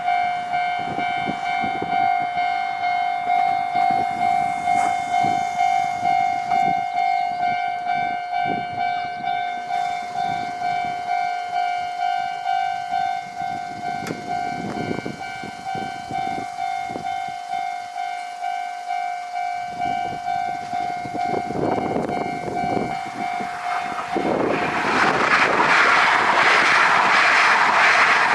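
Japanese railway level crossing's electronic alarm sounding a steady, evenly pulsing kan-kan tone. Near the end a mini-shinkansen train passes over the crossing with a loud rush of wheel and rail noise, and the alarm tone is no longer heard.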